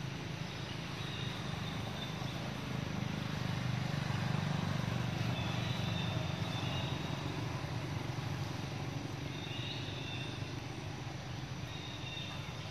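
A low, steady engine drone, like a passing vehicle, swells about four seconds in and then slowly eases off. Faint short high chirps come a few times over it.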